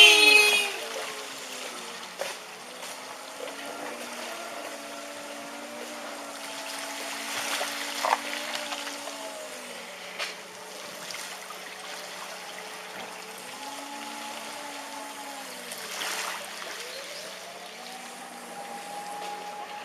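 Several car horns sounding on their own in the tsunami floodwater: long, held tones of different pitches that overlap, drift and come and go. Underneath is a faint wash of flowing water.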